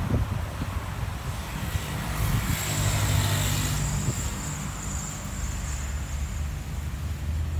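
Wind buffeting the microphone as a low rumble, with a car driving past on the road, loudest about two to four seconds in.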